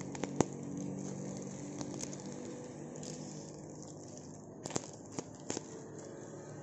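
Plastic parcel wrapping crinkling and rustling as it is handled and opened, with a sharp click about half a second in and three more around the five-second mark, over a faint steady hum.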